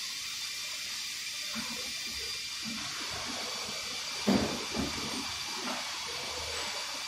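Steady hiss with a couple of faint steady tones, and soft knocks of parts being handled on a Toyota Land Cruiser V8 engine during dismantling, the loudest a metal clunk a little past four seconds in followed by a lighter one.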